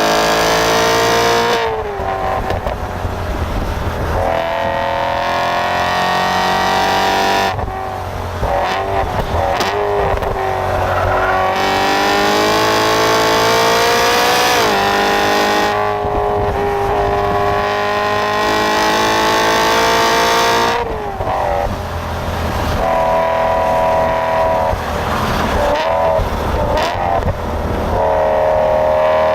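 Supercharged BMW E92 M3's 4.0-litre V8 under hard acceleration on track. Its pitch climbs steadily for several seconds at a time and drops sharply about four times.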